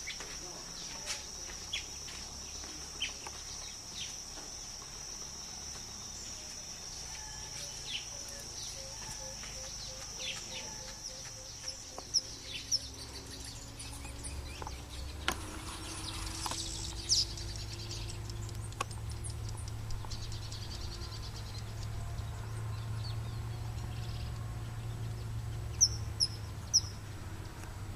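Outdoor birdsong: scattered short bird chirps and calls, with a few sharp chirps near the end, over a steady high insect drone that fades out about twelve seconds in.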